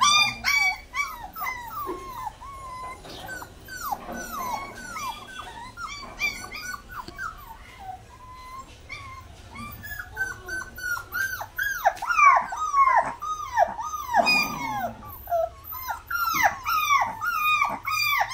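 Puppies whining and whimpering in a long string of short, high cries that slide down in pitch, coming thicker and louder from about twelve seconds in.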